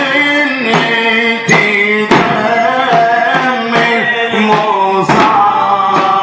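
Male reciter chanting a Shia Muharram lament (latmiya) in long, held melodic lines, over a steady drum beat struck about every three-quarters of a second.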